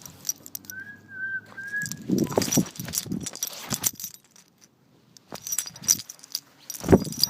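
Handling noise from a phone strapped to a dog's harness: jingling, rubbing and knocks as the dog moves. About a second in there is a thin, wavering whistle-like tone lasting about a second, and the sound drops away almost completely for about a second past the middle, before a sharp knock near the end.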